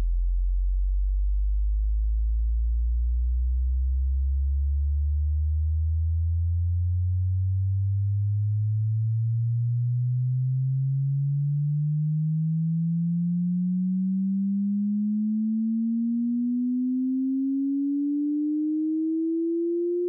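Pure sine test tone of a hearing-test frequency sweep, gliding slowly and steadily upward in pitch from about 53 Hz to about 450 Hz at an even level.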